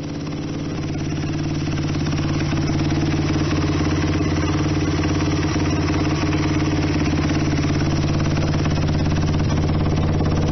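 Freshly overhauled Honda XR100 single-cylinder four-stroke engine running steadily at idle through its exhaust, growing a little louder over the first couple of seconds and then holding even.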